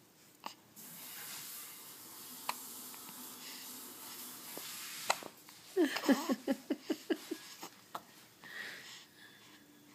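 A baby hiccuping: a few short sharp hiccups a couple of seconds apart, then a stuttering run of small baby vocal sounds about six seconds in.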